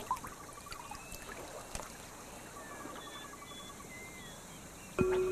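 Faint lapping and trickling of shallow river water, with a few faint high chirps. Music starts near the end.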